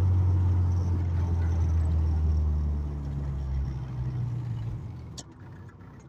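Honda K24A2 2.4-litre four-cylinder in a Civic EK hatchback, heard from inside the cabin as the car slows down: a loud low engine hum that fades away about four seconds in.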